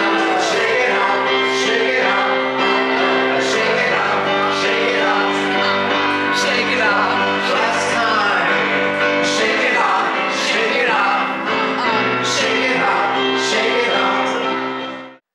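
Live keyboard music with a man singing: held keyboard chords under the voice and a steady beat, fading out just before the end.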